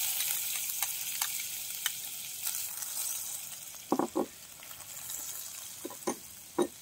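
Butter melting and sizzling in a hot nonstick pan, the hiss slowly fading. A few light clicks, with metal clinks of a utensil knocking on the pan twice about four seconds in and again near the end.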